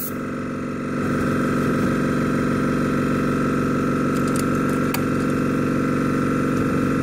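Small air compressor for an airbrush running with a steady motor hum, a little louder from about a second in. A few light clicks come near the middle.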